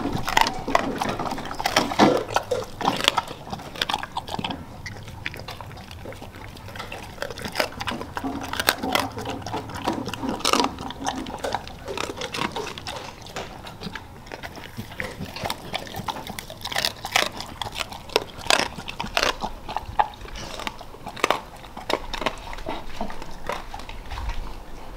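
Dogs chewing and crunching frozen raw chicken and mackerel, in irregular crisp crunches.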